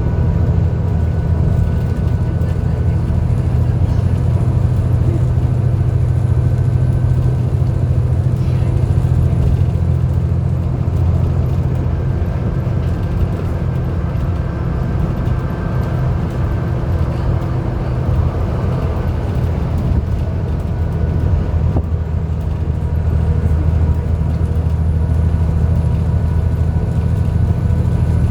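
Alexander Dennis Enviro400 double-decker bus running, a steady heavy engine drone. Over it is a thin, high vacuum-cleaner-like whine, the 'hoover' sound the bus is known for. The whine fades out about ten seconds in and rises back around twenty-three seconds.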